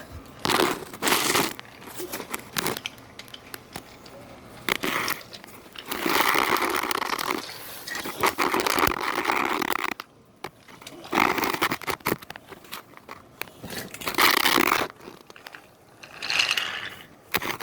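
Wooden toy train scraping and rattling along wooden track in bursts of one to two seconds, with short pauses between.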